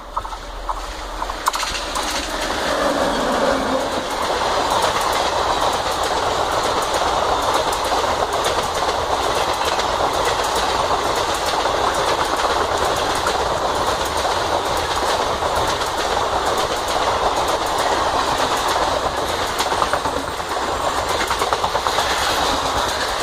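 An express passenger train hauled by a WAP-7 electric locomotive passes at speed. The noise grows over the first few seconds as the locomotive arrives, then the coaches roll by in a steady rush, their wheels clicking rapidly over the rail joints.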